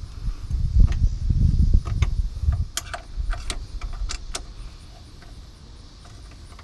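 Light metallic clicks and clinks of motor mount bolts and washers being handled and threaded in under the chassis, after a low rumble in the first couple of seconds.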